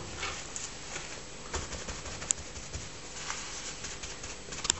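Kitchen paper rustling and patting against a piece of raw beef rump on a plastic cutting board as the meat is dabbed dry before searing: soft irregular taps and crinkles, with a couple of small sharp clicks about two seconds in and near the end.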